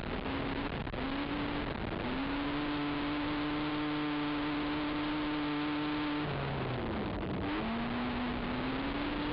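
Racing ATV engine under hard throttle on a dirt track: the pitch climbs in short steps through the gears, holds steady at full throttle for about four seconds, dips as the throttle is eased about six seconds in, then climbs again, over a steady hiss of wind and track noise.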